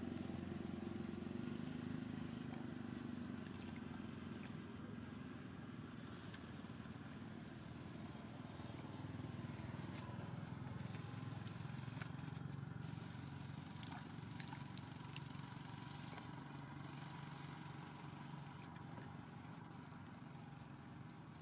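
Low, steady drone of a distant engine that slowly fades away, with a few faint clicks.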